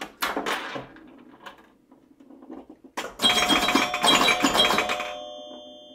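Title-animation sound effects: two short swishes at the start, then from about three seconds in a dense jingling burst with bell-like chime tones that ring on and fade out.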